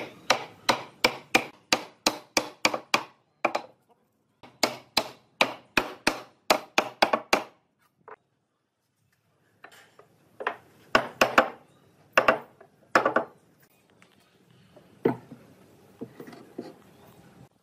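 Hammer striking a pine panel to seat it in the mortises of a wooden base. The blows come quickly, about four a second, in several runs with short pauses, then a single knock near the end.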